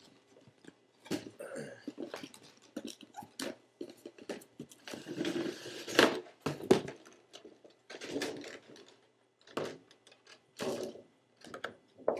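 Paper wrapping and a cardboard shoe box being handled: a string of short rustles, crinkles, scrapes and light knocks, busiest and loudest about five to seven seconds in.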